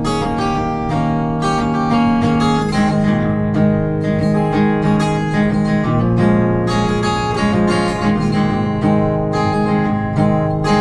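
Acoustic guitar strummed in a steady rhythm, an instrumental passage between verses of a song.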